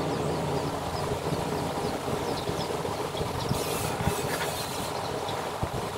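Steady low drone of a running machine, with a brief scratch of a pencil drawing a line along a speed square on wood about three and a half seconds in.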